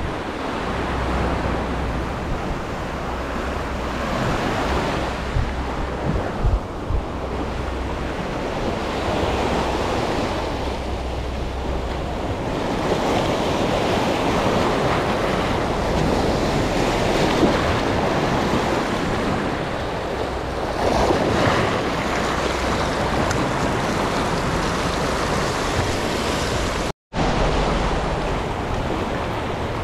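Wind noise on the microphone over sea waves, a steady rushing hiss that cuts out for a split second near the end.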